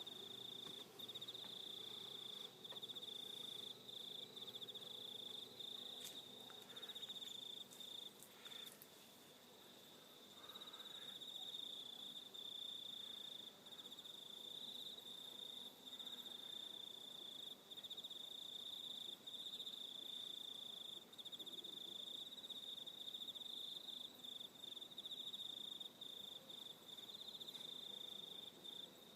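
Insects trilling in a steady, unbroken high-pitched buzz, with a few faint short chirps about a third of the way in.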